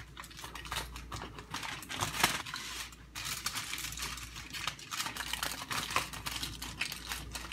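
Aluminium foil crinkling and crackling as hands fold and press the edges of a foil packet shut: a dense run of small irregular crackles, with one louder crackle a little over two seconds in.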